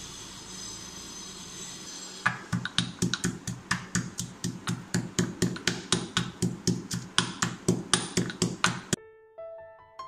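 Marble pestle pounding whole spices, cardamom pods among them, in a marble mortar: an even run of sharp knocks, about four a second, starting about two seconds in. The knocking stops abruptly near the end, and soft piano music begins.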